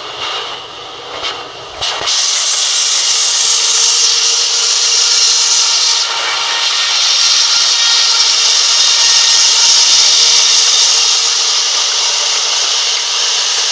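Large sawmill band saw ripping lengthwise through a log fed by hand along the table. A few knocks come first, then about two seconds in the blade bites into the wood and a loud, steady, hissing whine of the cut sets in.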